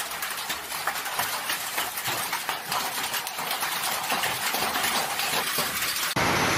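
Hailstorm: a dense, irregular clatter of hailstones hitting the ground and nearby surfaces. Near the end it cuts abruptly to a louder, steady rushing of the storm.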